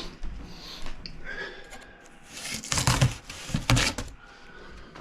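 Rustling and knocking of a cardboard box being handled for unboxing, with a few louder scraping, rustling bursts a little after halfway.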